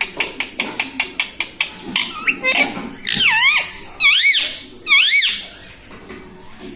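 Ring-necked parakeet vocalising: a quick run of clicks, a few short chirps, then three loud squeaky calls, each dipping and rising in pitch, about a second apart.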